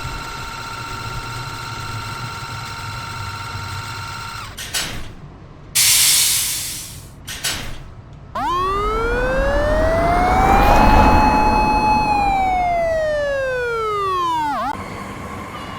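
Animated electric-train sound effects. A steady motor hum over a low rumble stops about four seconds in, followed by a short hiss and a few clicks. Then a whine rises in pitch, holds for about a second and falls again, like a train's inverter motor speeding up and slowing down.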